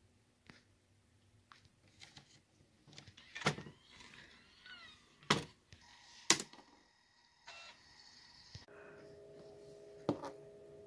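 A few sharp knocks and clicks, the loudest three spread over a few seconds, then a steady low two-tone hum that starts near the end.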